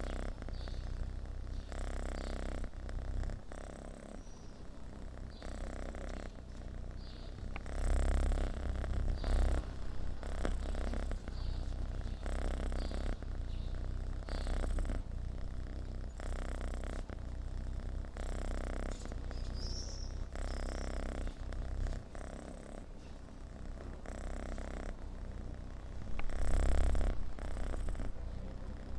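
Kitten purring steadily while being groomed with a flea comb, a contented purr that swells and fades in a regular rhythm about every second and a half. There are a couple of louder low bumps, about eight seconds in and again near the end.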